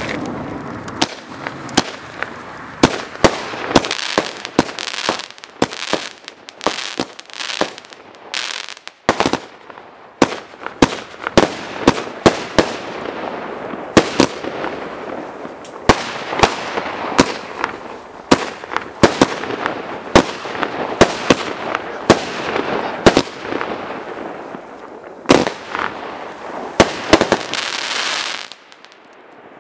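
Total FX Tangled Web 27-shot firework cake firing in quick succession: a string of sharp bangs from the shots launching and bursting, over continuous crackling from the stars. It stops suddenly near the end.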